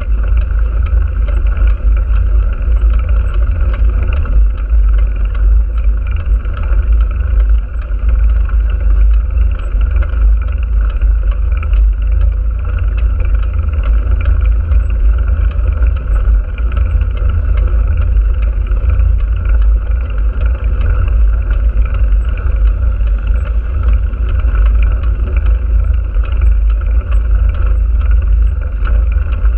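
Wind buffeting the microphone of a camera mounted on a moving bike: a loud, steady, flickering rumble with no break.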